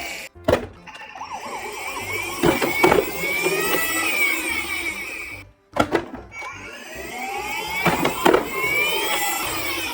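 Electronic toy vehicle sirens wailing up and down, overlapping, with sharp clacks of plastic toys. The sound cuts out briefly about halfway through, then the sirens and clacks start again.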